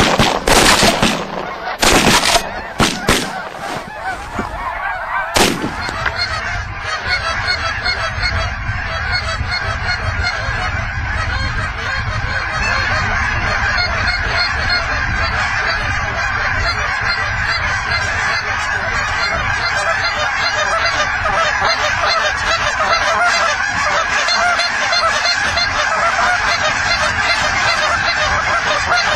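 A large flock of geese honking continuously in a dense, overlapping chorus. Several sharp bangs, the loudest sounds, stand out in the first six seconds.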